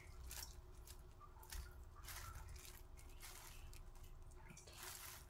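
Faint, soft squishing and rustling of a plastic-gloved hand tossing and squeezing dressed shredded radish and green laver in a stainless steel bowl.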